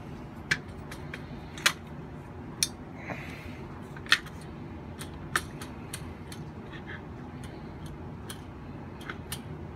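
Sharp, scattered clicks and light knocks from a 9mm AR-15 being handled and turned over, its parts clicking against each other and against the hands, over a steady low hum.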